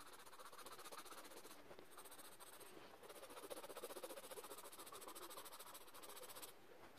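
Faint, steady scratching of a coloured pencil shading back and forth on sketchbook paper.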